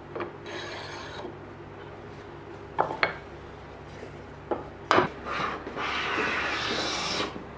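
Small hand plane shaving along a wooden rail: a short stroke near the start, a few sharp knocks of wood and tools on the bench around the middle, then one long steady planing stroke of about two seconds.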